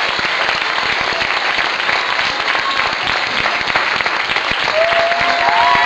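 Audience applause, a dense steady clapping, with a voice or two calling out near the end.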